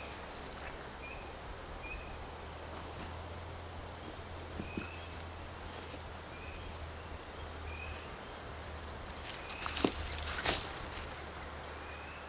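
Soil and debris scraped and pushed by hand over an earth pit oven: a rustling, scraping noise of about a second, a little under ten seconds in, over a steady outdoor background with faint short high chirps now and then.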